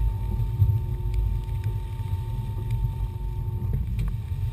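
A boat's twin outboard motors running, a steady low rumble with a faint steady whine, mixed with wind buffeting the microphone.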